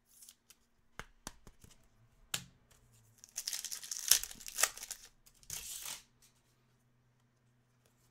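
A Topps Chrome Formula 1 card pack being torn open by hand, its wrapper crinkling. A few sharp clicks come first, then the main tearing and crinkling from about three seconds in, with a shorter burst about two seconds later.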